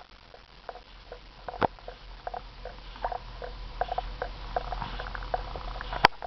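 Small, irregular squeaks and wet smacks as a baby chews and squeezes a rubber Sophie the Giraffe squeaky teether, with one sharp click near the end.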